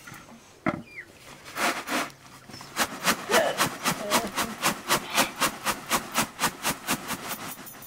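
Rapid, regular back-and-forth scraping strokes, about five a second, starting about three seconds in after a few slower scrapes.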